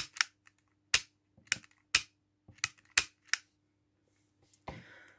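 A SIG Sauer SP2022 CO2 airsoft pistol's trigger being pulled over and over, its mechanism giving about eight sharp mechanical clicks, some in quick pairs. A short soft rustle follows near the end.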